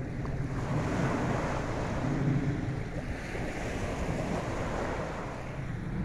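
Small ocean waves breaking and washing up the beach, the wash swelling about half a second in and easing near the end, with wind buffeting the microphone.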